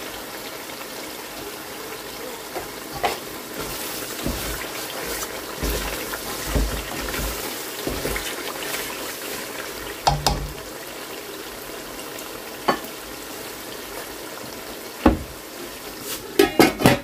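Curry sizzling in a metal kadai while a wooden spatula stirs and scrapes it, with occasional knocks against the pan. Near the end a metal lid clatters several times as it is set on the pan.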